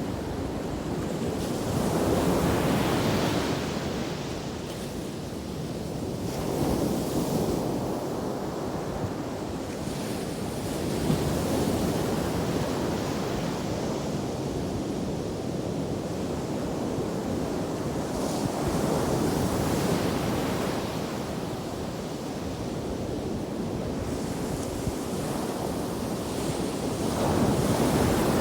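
Ocean surf washing on a beach, a continuous rush of water that swells louder as waves break, about five times over the stretch.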